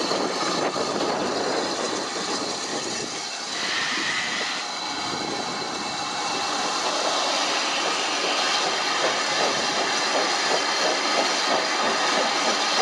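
Steam locomotive, GWR 5600-class tank engine 6695, moving past at close range with a steady hiss and rail noise, and a brief high squeal about four seconds in. Later a second steam locomotive approaches with a regular beat.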